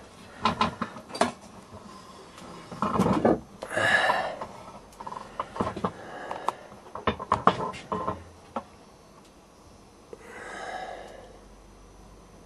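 Scattered clicks, knocks and light metallic clatter of tools and objects being handled. Two short rushing sounds come through, one about four seconds in and a fainter one near the end.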